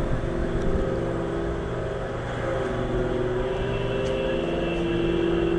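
An engine or motor running steadily, a droning hum that wavers a little in pitch.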